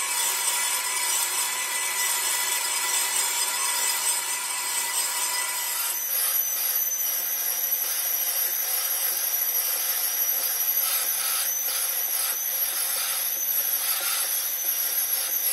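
Metal lathe boring the inside of a cast-iron truck brake drum: the cutting tool makes a steady high scraping hiss with whining tones, and the pitch pattern shifts about six seconds in.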